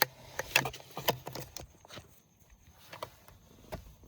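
Scattered light clicks and knocks, mostly in the first second and a half, from handling a steering wheel and its airbag wiring as the wheel is fitted onto a C5 Corvette's steering column.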